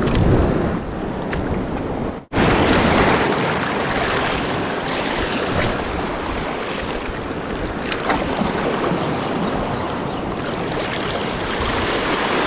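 Surf washing over a rocky reef shoreline, with wind buffeting the microphone. The sound drops out for an instant about two seconds in.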